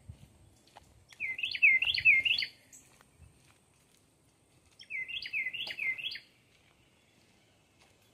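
A songbird singing two phrases, each of four quick repeated swooping notes, about a second in and again about five seconds in.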